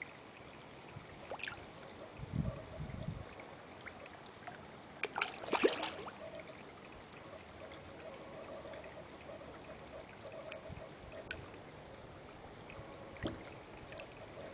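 Koi splashing at the pond surface as they feed, in a few irregular splashes, the loudest cluster about five and a half seconds in.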